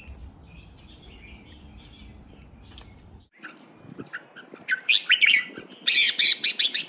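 Red-whiskered bulbul singing in its cage: a fast run of loud, clear chirping phrases that starts about halfway through and is loudest near the end. Before that, only faint scattered bird chirps.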